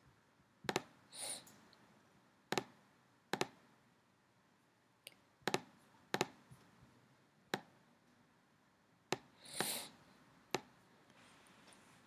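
Computer mouse clicking: about eight sharp single clicks at irregular intervals. There are also two short, soft hisses, one about a second in and one near the end.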